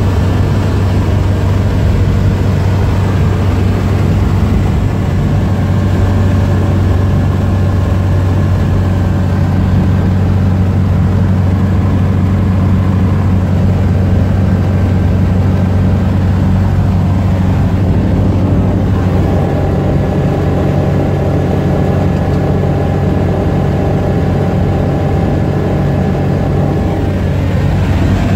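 A light high-wing aircraft's piston engine and propeller running steadily, heard from inside the cockpit: a loud, even low hum over a rush of air noise. The engine note shifts slightly about two-thirds of the way through.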